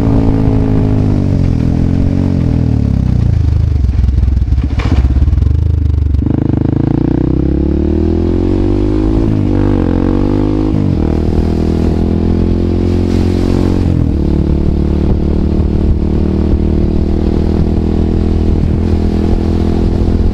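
Husqvarna 630 supermoto's single-cylinder four-stroke engine through open FF by Fresco slip-on exhausts with no dB killer. The revs fall for the first few seconds as the bike slows. About six seconds in it pulls hard, the pitch rising with two quick upshifts, and it then holds steady at cruising revs.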